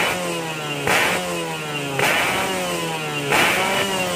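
Suzuki Satria 120 two-stroke single-cylinder engine revved in short throttle blips about once a second through a standard-shaped racing exhaust, the revs rising sharply and falling back toward idle after each blip.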